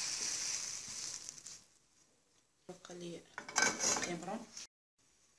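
Fried squid strips being scraped out of a hot frying pan onto a plate with a silicone spatula: pan-and-plate scraping over the last of the sizzle, which dies away within about two seconds. A voice speaks briefly later on.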